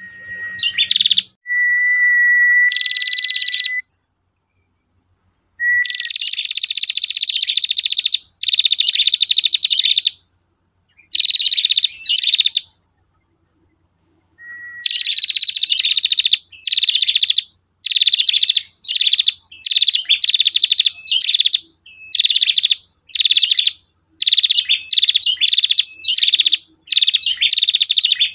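Female prenjak (prinia) giving its long 'tir' call: runs of very rapid, buzzy repeated notes, each run up to about two seconds long with short pauses between, a few opened by a brief steady whistle. The runs come shorter and closer together in the second half.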